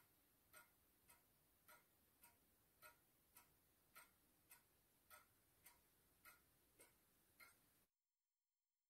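Mechanical pendulum wall clock ticking faintly and evenly, a little under two ticks a second; the ticking cuts off abruptly about eight seconds in.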